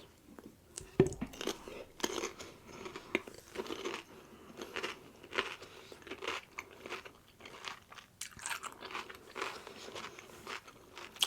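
Close-up chewing of crispy rolled tacos: irregular crunching and crackling bites, continuing throughout.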